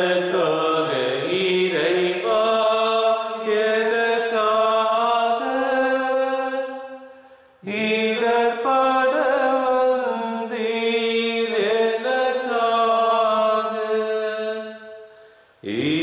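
Slow devotional chant-like singing by a voice: two long sung phrases of about seven to eight seconds each, with a brief breath between them about halfway through and a third phrase starting near the end.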